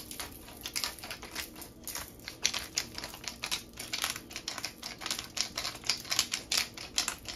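Pepper grinder being twisted to crack black pepper: a quick, irregular run of crisp clicks, several a second.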